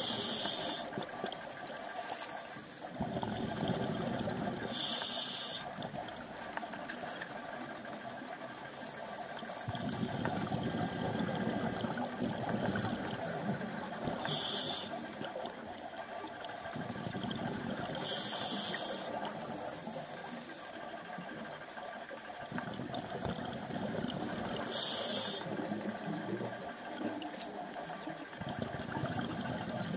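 Scuba diver breathing through a regulator underwater: short hissing inhalations alternating with longer bubbling exhalations, about five breaths.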